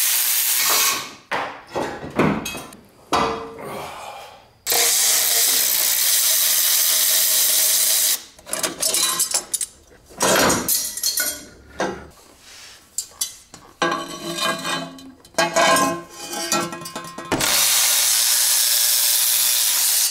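Milwaukee cordless ratchet spinning bolts out of a turbo manifold: three long runs of a few seconds each, with shorter bursts, socket clicks and metal clinks in between.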